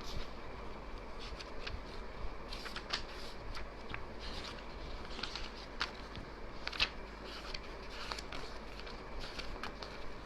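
Faint scattered clicks and rustles of small handling noises, irregular and a few each second, over a steady background hiss and low hum.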